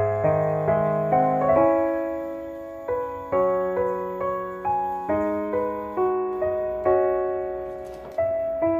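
Soft background piano music: a slow melody of single struck notes, each fading away before the next.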